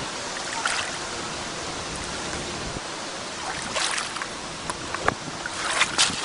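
Steady rushing noise with a few light clicks.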